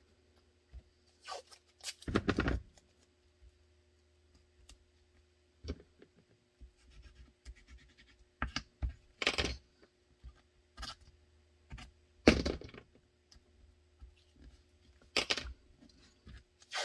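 Blue painter's tape being torn and pressed down by hand over a pistol mold. Several short ripping and rubbing noises come a few seconds apart, the loudest about two, nine and twelve seconds in, over a faint steady hum.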